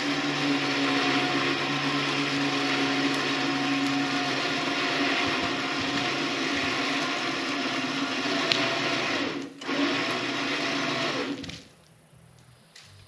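Battery-powered electric motor running steadily at a constant pitch. It drops out briefly about nine and a half seconds in, spins back up, then stops about a second and a half before the end.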